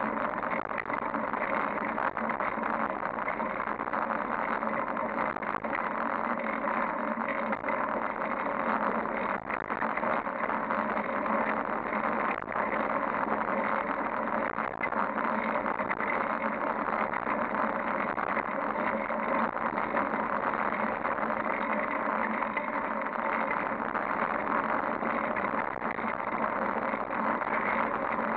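Steady wind and road noise from a fixed-gear bicycle riding on pavement, picked up by a camera mounted on the bike, with a faint steady hum under it.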